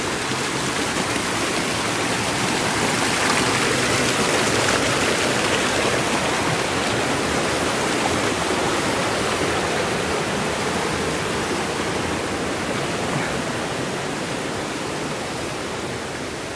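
Rushing water of a rocky mountain stream, a steady loud rush that swells a few seconds in and eases slightly near the end.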